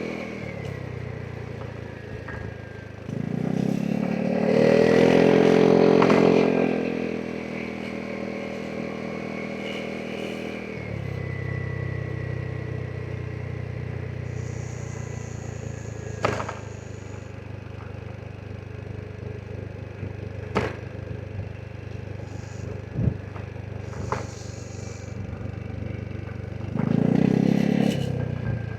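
Vespa GTS 300 SuperSport scooter's single-cylinder engine running under way, rising in pitch and getting louder for a few seconds near the start as it accelerates, then holding a steady note. Several sharp knocks and some clatter come through in the middle, and the engine surges again near the end.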